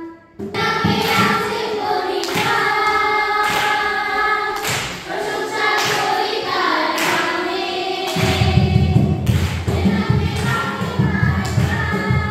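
A congregation of children and women singing a worship song together, over a steady thumping beat that falls about once every second. About eight seconds in, a heavy bass comes in under the singing.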